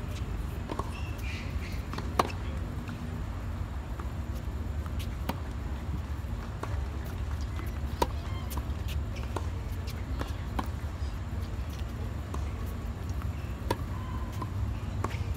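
Tennis balls struck with rackets in a practice rally, with sharp pops the loudest about two seconds in, about eight seconds in and near the end, and fainter hits and bounces between. A steady low rumble lies underneath.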